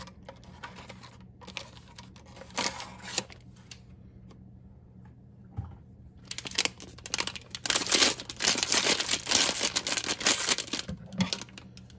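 Foil blind bag crinkling as it is handled and squeezed, dense and crackly from about halfway through, with a short pause near the end. Before that come a few light taps of the cardboard blind box.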